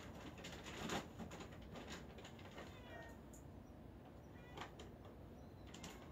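A hungry cat meowing twice in short, high calls, about three seconds in and again a second and a half later. A sharp thump about a second in.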